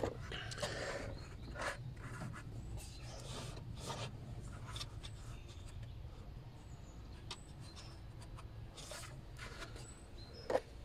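Hands working hoses and hose clamps in a car's engine bay: scattered rubbing, scraping and small clicks, with a sharper click near the end.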